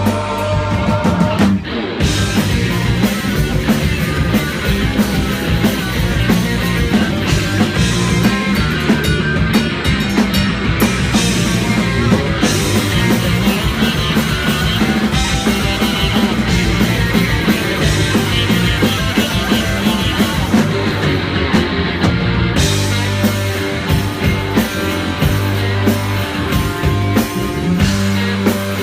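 Live rock band playing loudly, with drum kit and guitar.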